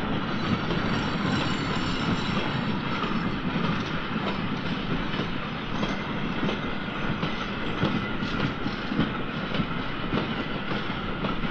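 Goods train hauled by a 2-10-0 steam locomotive, ÖBB No. 42-2714, on the move: a steady, dense rumble with the clatter and knocking of the wagons on the rails.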